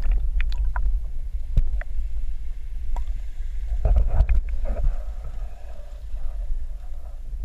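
Water rumbling around a submerged camera, a steady low churn with scattered sharp clicks and ticks and a patch of hiss through the middle.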